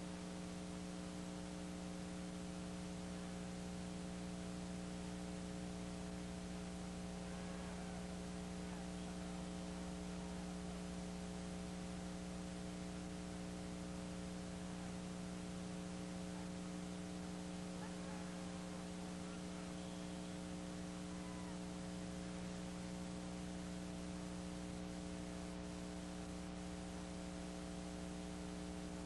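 Steady electrical hum, a buzzy tone with several overtones, over a constant hiss.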